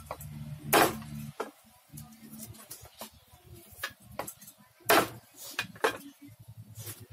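Large kitchen knife knocking on a wooden chopping block as lemongrass stalks are cut: a few sharp, separate knocks, the loudest about a second in and about five seconds in, over a faint low hum.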